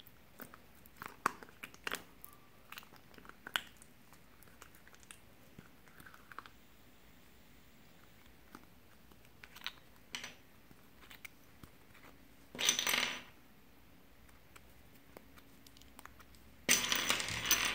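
Small plastic glitter-glue bottles being handled: scattered light clicks and taps, then two short bursts of noise about a second long, the second right at the end.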